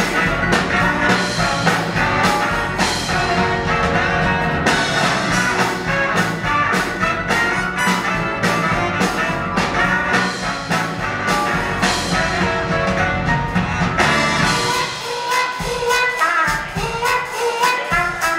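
Live swing band playing: saxophones and trumpet over drums, piano and upright bass, in the instrumental opening before the vocals come in. The bass drops away for a few seconds near the end while the rest of the band carries on.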